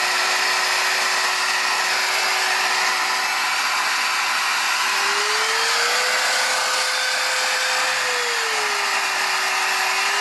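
Raven cordless stick vacuum's motor running with a steady whine over a rush of air. Its pitch rises about halfway through, settles back lower a couple of seconds later, and starts to rise again near the end.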